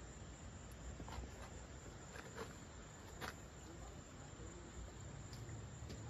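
Quiet night background: a low steady rumble with faint insect chirring, and a few soft clicks about one, two and three seconds in.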